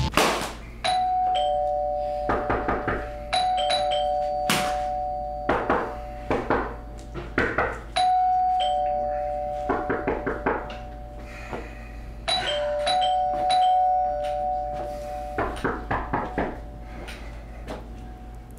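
Two-tone doorbell chime, a higher note then a lower one, rung again and again, the notes ringing on and overlapping. Clusters of sharp knocks come between the rings.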